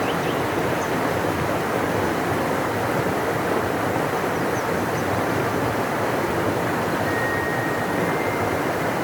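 Large river rushing steadily, a constant deep wash of water noise, with a few faint high chirps, likely birds, near the start and about halfway through.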